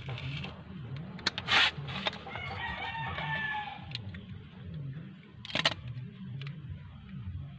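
A rooster crowing once, a drawn-out call of nearly two seconds starting about two seconds in. Short sharp knocks and bursts of noise come before and after it.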